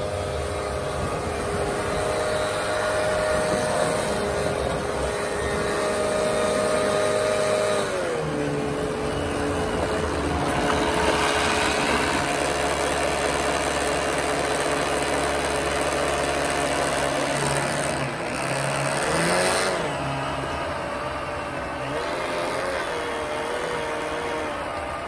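The 3660 brushless electric motor of an RC snowblower spins its impeller with a steady whine while throwing powder snow. The pitch drops about eight seconds in and swoops up and down briefly near the three-quarter mark.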